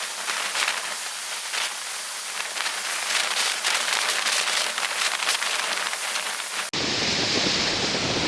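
Water spray hissing and crackling as a windsurf board planes over the sea, with many quick ticks of droplets. About seven seconds in it cuts off suddenly to a lower rumble of surf and wind.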